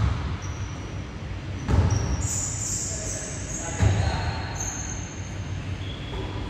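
Basketball game on a hardwood gym court: the ball thuds on the floor three times, about two seconds apart, among short high squeaks of sneakers and players' voices.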